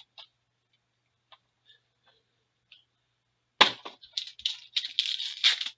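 A few faint clicks, then about three and a half seconds in a trading-card pack wrapper is torn open, with a run of loud crinkling and crackling.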